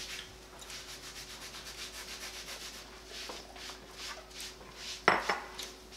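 Soft rubbing and scraping strokes, roughly one a second, over a faint steady hum, with a single sharp knock about five seconds in.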